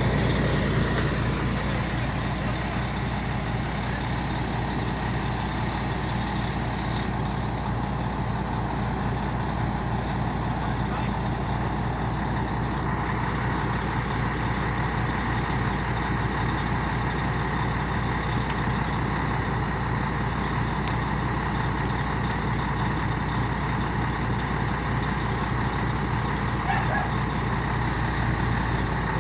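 Heavy diesel truck engine running steadily, with an even pulsing drone heard from inside the cab; the truck's exhaust is broken.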